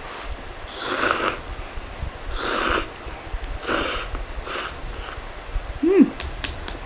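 Noodles being slurped from a cup of instant noodles, four slurps about a second or so apart, followed near the end by a short hummed "mm".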